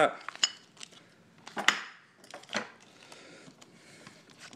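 Silver and copper rounds in plastic flips being handled on a table: a few light clicks and plastic rustles, the loudest a little under two seconds in.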